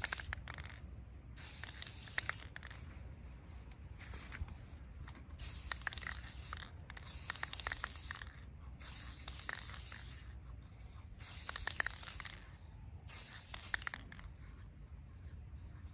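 Aerosol spray-paint can sprayed in short hisses, about eight bursts of a second or so each with short pauses between, and light clicking during several of them.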